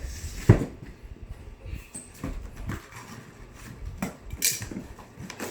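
A cardboard shipping box being handled and worked open with scissors: scattered knocks and thumps, the loudest about half a second in, and a short scraping rustle about four seconds in.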